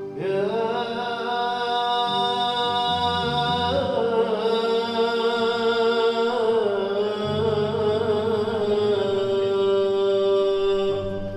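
A man singing long, held notes in a slow Arabic-style vocal line, the pitch wavering and sliding between notes, over a steady low drone.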